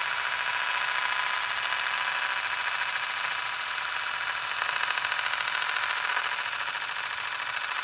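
Rotation sound effect: a steady, fast fluttering whir of something spinning rapidly.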